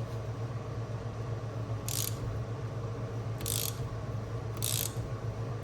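Socket ratchet clicking in three short strokes, roughly a second and a half apart, backing out cover bolts on a Yamaha 90 hp two-stroke outboard powerhead, some of them stuck fast. A steady low hum runs underneath.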